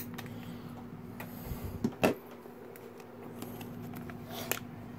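Small scissors snipping the top of a foil blind-bag packet, then sharp knocks about two seconds in as the scissors and packet are set down on the tabletop, with a softer click near the end.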